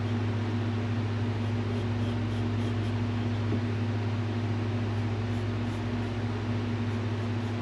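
A running fan: a steady low electric hum with an even rush of air, unchanging throughout.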